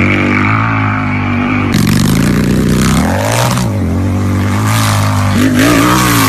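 Harley-Davidson motorcycle's V-twin engine idling, with two throttle blips that rise and fall back to idle: one about three seconds in and another near the end.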